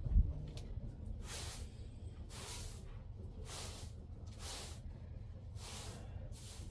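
A straw hand broom swishing across a carpet in slow strokes, about one a second, five in all. A short dull thump right at the start.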